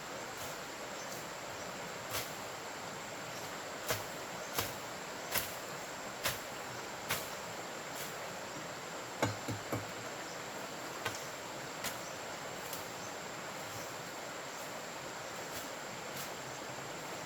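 A series of about a dozen sharp knocks, mostly evenly spaced about a second apart with a quick group of three near the middle, over a steady high insect drone.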